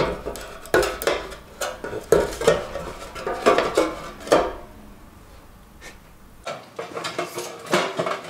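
Thin wooden board and small wooden box being handled: irregular knocks, taps and scrapes of wood on wood as the board is pushed into the box and worked back out, with a quieter stretch past the middle.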